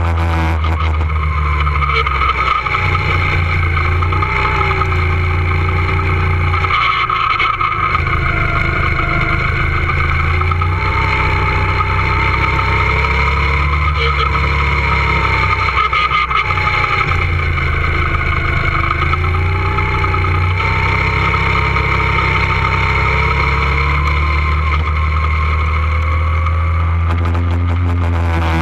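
Two-seater go-kart's engine running hard on a lap, close to the microphone. Its pitch rises and falls with the throttle, and the low drone dips briefly a few times where the kart slows for corners.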